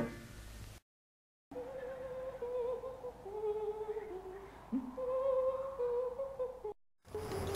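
A voice humming a slow, wordless tune in a single line of held notes that step up and down, starting and stopping abruptly.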